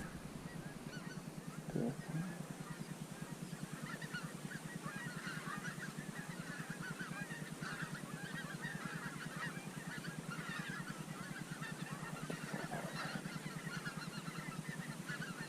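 A flock of geese honking, many birds calling over each other; the calls build up about three seconds in and carry on steadily. A brief knock sounds about two seconds in.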